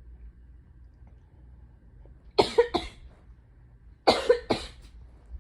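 A woman with a cold coughing: two pairs of quick, sharp coughs, the second pair coming under two seconds after the first.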